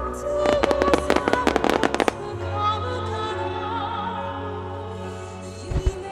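A rapid volley of fireworks bursts, a dense run of bangs lasting about a second and a half, over music with held melodic lines. A few low booms follow near the end.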